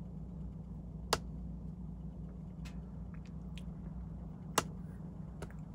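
Hands tying feathers onto a hook held in a fly-tying vise: a few small ticks and two sharp clicks, one about a second in and one near the end, over a steady low hum.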